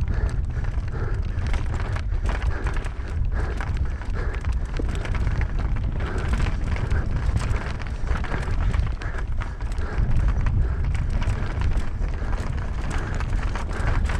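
Knolly Fugitive LT mountain bike descending a rough dirt singletrack at speed: constant rattling and clicking of the chain, frame and tyres over rocks and roots, under heavy wind rumble on the camera microphone.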